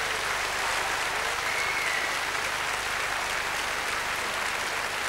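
Large concert audience applauding steadily, a dense even clatter of many hands clapping.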